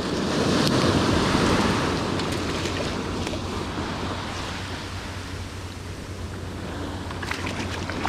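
Small surf washing up the beach: the foamy swash swells over the first couple of seconds, eases off, and builds again near the end, with a few light clicks near the end.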